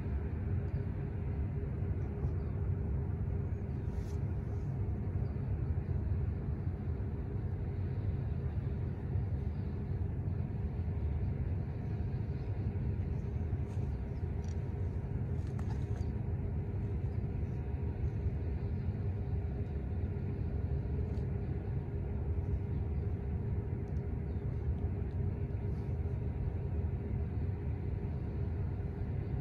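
A steady low rumble with a faint constant hum, without change.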